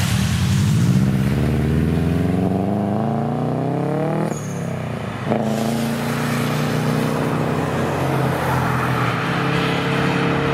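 Subaru Impreza WRX STI with a large single aftermarket exhaust accelerating away. Its turbocharged flat-four revs climb for about four seconds, drop briefly at a gear change with a short whistle, then pull again in the next gear.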